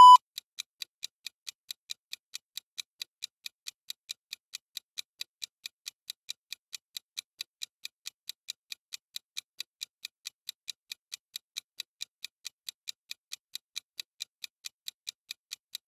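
Interval timer app ticking steadily, about three ticks a second, as it counts down a 20-second work interval.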